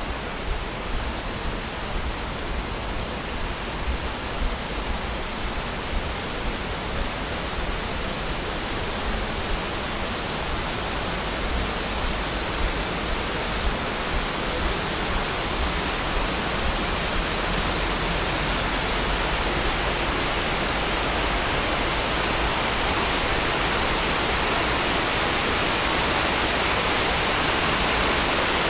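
Rushing water of the Cheonggyecheon stream, a steady hiss of falling and running water that grows gradually louder.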